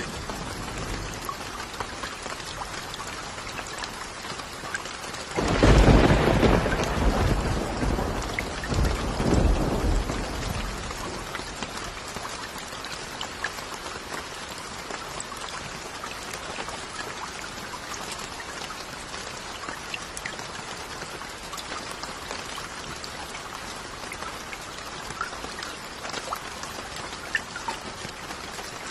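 Steady rain falling, with scattered individual drops ticking. About five seconds in a deep roll of thunder swells up, surges again a few seconds later and fades out.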